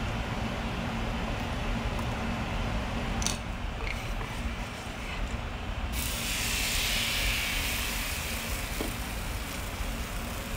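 Khmer pancake batter ladled into hot oil in a nonstick frying pan: about six seconds in a sudden loud sizzle starts and carries on, easing slightly near the end. Before it, a steady hum with a faint low drone.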